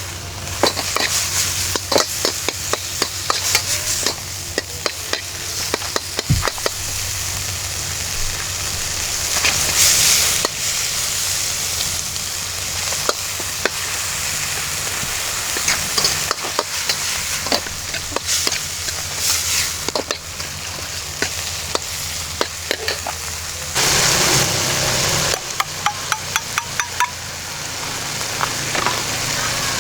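Food sizzling and frying in a pan, with a steady hiss and frequent sharp clicks and scrapes of a cooking utensil stirring it. About three-quarters of the way through, a louder rush of sizzle lasts a second or two.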